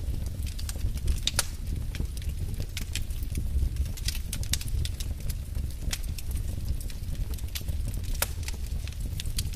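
Wood fire in a fireplace crackling: sharp pops at irregular intervals over a steady low rumble.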